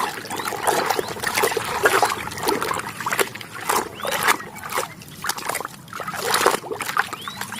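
Water splashing and trickling as a muddy toy excavator is washed and scrubbed by hand, in irregular splashes throughout.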